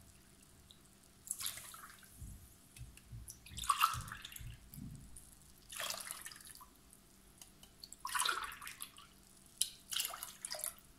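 Water poured from a drinking glass into a saucepan of granulated sugar, splashing in several separate pours.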